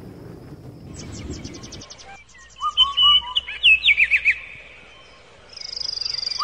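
Birds chirping and twittering: quick high chirps, then a run of short falling whistled notes in the middle and a high trill near the end. A low rumbling noise, like wind, fades out about two seconds in.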